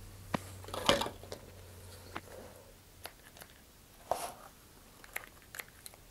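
Small handling noises: scattered light clicks and taps with brief crinkly rustles, the loudest about a second in and another around four seconds, as gloved hands press on a cardboard rocket body tube and handle a paper towel.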